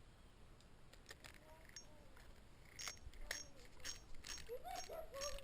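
Faint metallic clicks and light jingling, sparse at first, then about twice a second from around three seconds in. A faint, distant voice comes near the end.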